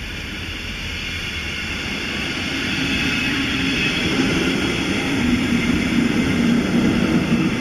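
Red double-deck regional train passing a level crossing close by: a steady rumble that grows louder as the train draws near, with a low hum joining about two and a half seconds in.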